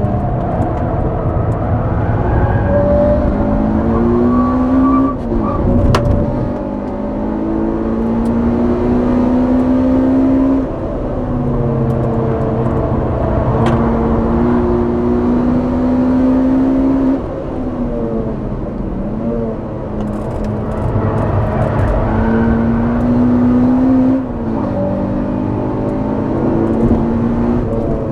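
Honda Civic Type R EP3's four-cylinder i-VTEC engine at full throttle, heard at the exhaust, its note climbing through the revs and then falling away sharply about every six or seven seconds as the throttle comes off, with two short clicks in between.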